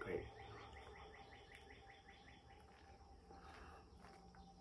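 A faint, rapid run of about a dozen short chirps, some seven a second, from a small animal; it stops about two seconds in, leaving a low steady hum.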